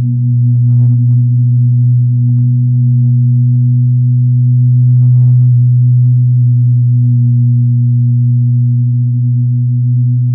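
Minimalist electronic drone music: a loud, steady low tone with a second, higher tone held above it, and faint crackles about a second in and again around the middle.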